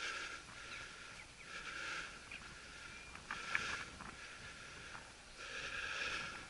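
A hunting dog's collar bell ringing in short bursts, about every second and a half to two seconds, as the dog works through the scrub. Scattered snaps and crackles from steps and brush run underneath.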